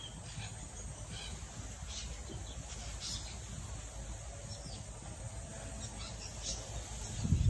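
Quiet outdoor yard ambience: a low steady rumble with scattered faint, short high chirps.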